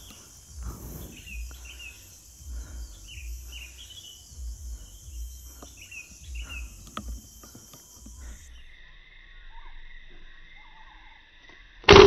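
Forest background of a steady high insect drone with short, falling bird chirps; about eight and a half seconds in, the drone gives way to a lower buzz. Right at the end, a single sharp air-rifle shot, the loudest sound.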